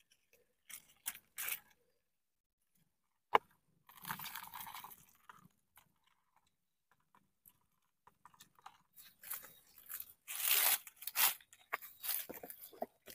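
Dry leaf litter and soil crunching and rustling under hands digging through it, in irregular bursts that are loudest near the end, with one sharp click about three and a half seconds in.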